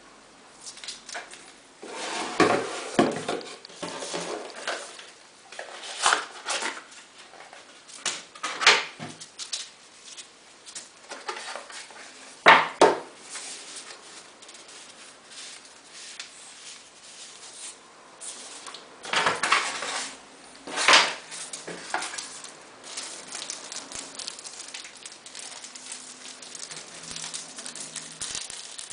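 Unboxing handling noise: an HTC Desire HD smartphone, its box and accessories being picked up, set down and unpacked, giving irregular clicks, knocks and taps with quieter rustling in between.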